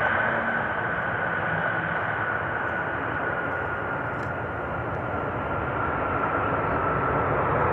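Jet airliner engines running loud and steady, with a high whine that slowly drops in pitch as the aircraft passes.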